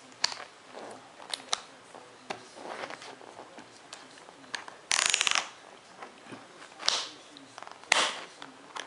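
Plastic clicks, rattles and short rasps from the straps and buckles of Kangoo rebound shoes being handled and fastened by hand. The loudest is a half-second rasp about five seconds in, with sharp clicks about two and three seconds later.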